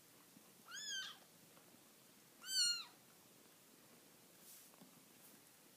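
A kitten meowing twice, two short high-pitched calls each rising then falling in pitch, the second louder.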